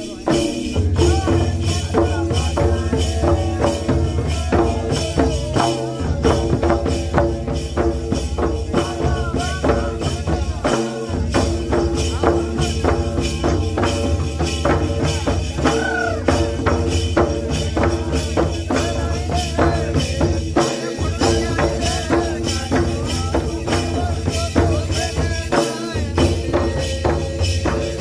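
Kathi Nacha folk stick-dance music: hand-beaten barrel drums in a fast, dense rhythm with wooden dance sticks clacking, over a steady drone.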